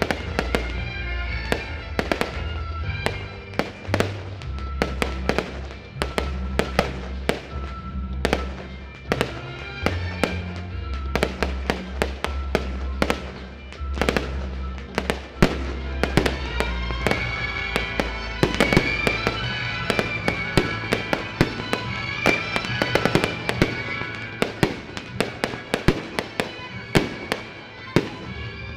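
Aerial fireworks shells bursting in a rapid series of sharp bangs and crackles over music with a steady bass line. The bangs come thicker and louder in the second half.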